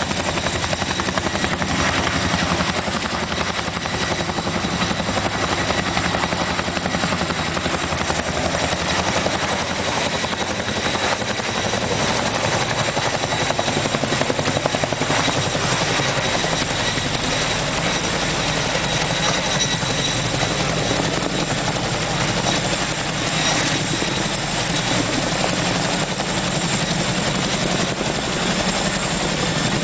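Boeing CH-47 Chinook tandem-rotor helicopter running steadily: a rapid rotor beat with a steady high turbine whine over it.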